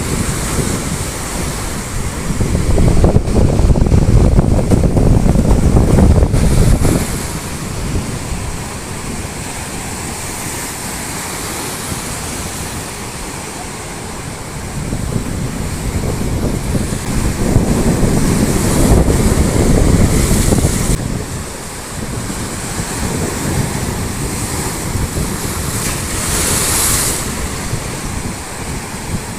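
Waves washing onto a beach in strong wind, with wind buffeting the microphone in two long, loud rumbling gusts, one a few seconds in and one just past the middle.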